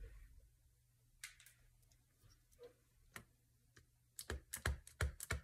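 Faint light clicks of a clear stamp and acrylic block being handled. About four seconds in comes a quick run of taps, about five a second, as the inked stamp block is tapped repeatedly on an ink pad.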